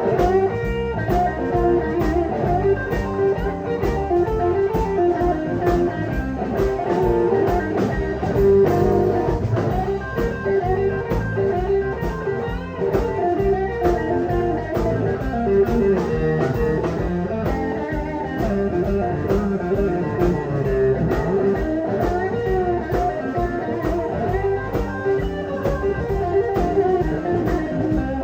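Live blues band playing a shuffle at a sound check: electric guitar over bass and drum kit, with a steady rhythm.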